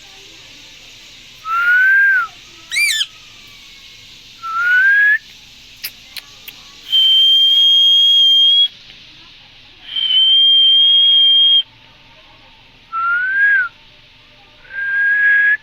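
Indian green parrot whistling: a run of clear whistles, mostly short rising ones, with one quick up-and-down whistle and two long, steady, high-pitched whistles in the middle.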